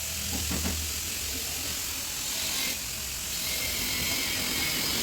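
Steady hiss with a low hum beneath it; the hiss changes character about three seconds in.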